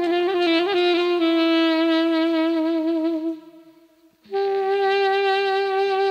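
Solo saxophone playing a slow, ornamented melody: a quick run of grace notes, then a long held note with vibrato that fades out about three and a half seconds in. After a short breath pause, a second long note is held steadily.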